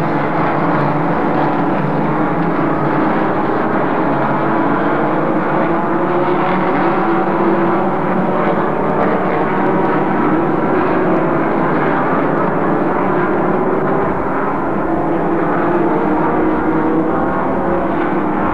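Engines of several race cars running hard at racing speed. They blend into a continuous drone whose pitch wavers up and down.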